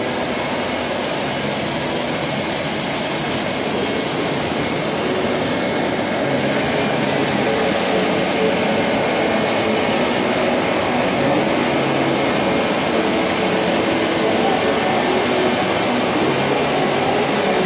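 GLASSMAN vertical 5-axis CNC glass drilling, milling and grinding centre running, its spindle working glass under a spray of water coolant: a steady mechanical noise with a steady high whine and hiss, a little louder after about six seconds.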